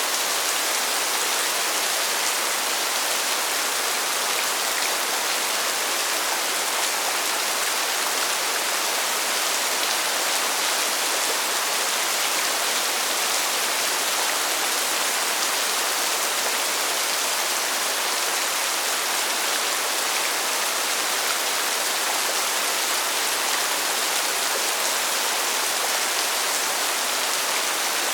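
Steady rain falling: an even, unbroken hiss, bright and high with little low rumble, without thunder or distinct separate drops.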